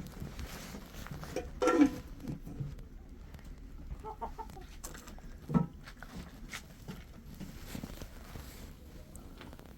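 Chicken clucking: a loud squawk about two seconds in, softer clucks around four seconds in, and a short sharp call a little after five seconds.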